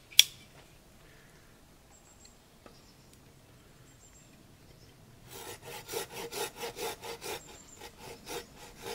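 A sharp click just as it begins, then a saw cutting down into a split spruce board in regular back-and-forth strokes, about three or four a second, starting a little past halfway.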